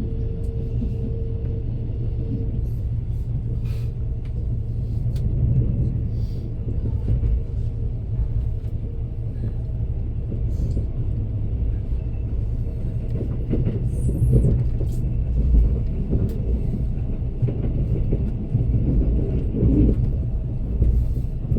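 Train running along the track, heard from on board: a steady low rumble with scattered clicks and knocks from the wheels and rails. A steady hum fades away in the first couple of seconds.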